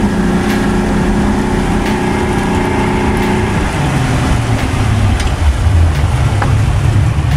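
Motorboat engine running steadily under way. About halfway through, its tone drops lower, as when the throttle is eased back.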